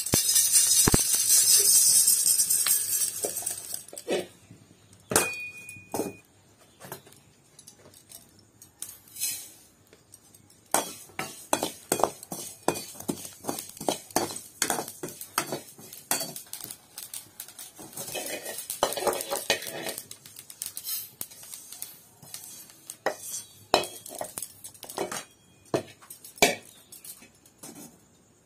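Metal spoon scraping and clinking against a steel kadai as seeds are stirred and dry-roasted over a wood fire, in many short irregular scrapes and clicks. It opens with a few seconds of loud hissing rush as roasted seeds are tipped out of the kadai into a steel bowl.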